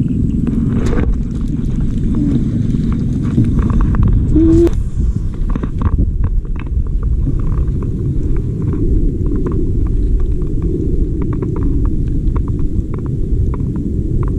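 Wind rumbling steadily on the microphone, with scattered light clicks and ticks over it.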